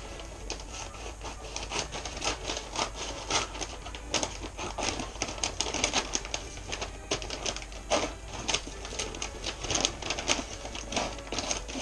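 Scissors cutting wrapping paper, with the paper crinkling and rustling as it is handled: a dense, uneven run of snips and crackles.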